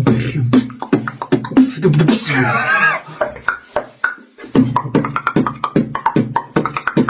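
Beatboxing: rapid mouth-made clicks and drum-like beats, with a wavering, warbling high vocal sound about two seconds in.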